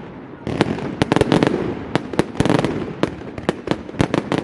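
Fireworks display: many sharp bangs and crackles in quick succession, beginning about half a second in.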